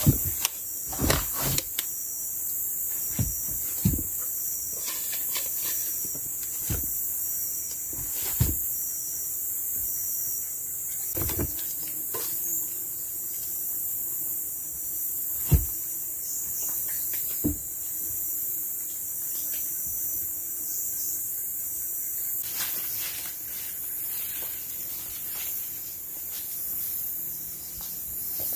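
A steady high-pitched chorus of forest insects, with about ten scattered wooden knocks and thuds of boards and poles being handled and set in place while a wooden shelter is built, most of them in the first eighteen seconds.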